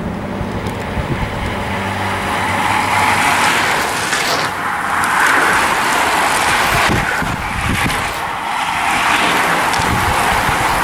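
A pack of road-racing bicycles riding close past: a steady whir of tyres and drivetrains on the lane, with uneven rumbling swells.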